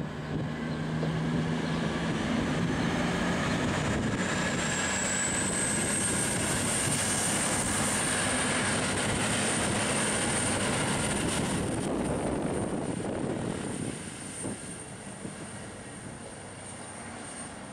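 V/Line VLocity diesel railcar passing on the tracks, its diesel engines droning under the noise of wheels on rail. The noise is loudest for about twelve seconds, then falls away as the train moves off. A thin high whine rises about four seconds in and then holds steady.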